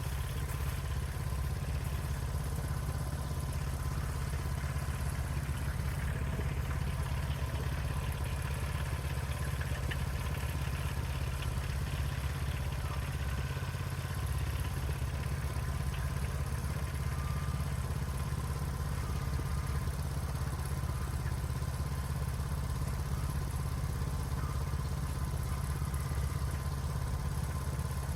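Sawmill's small engine running steadily at an even speed through the mill's first cut.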